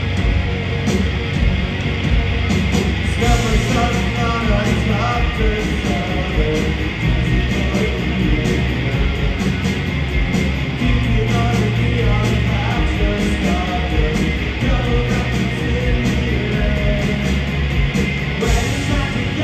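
Punk rock band playing live at full volume: electric guitars, bass and drums with a steady beat, in a big amplified room sound.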